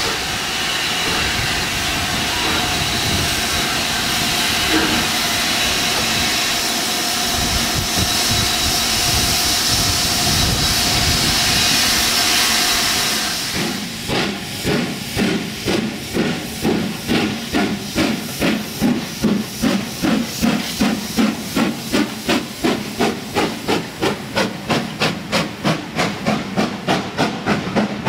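Steam locomotive, LMS Black Five 44871, first hissing steam steadily and loudly. About halfway through the sound switches to rapid, regular exhaust chuffs, about three a second, as the engine works its train past.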